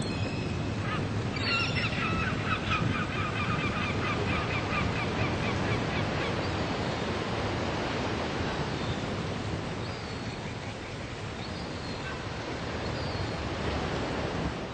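Sea surf washing steadily, with a gull giving a fast run of short calls from about a second and a half in to about five seconds in, and a few faint calls later on.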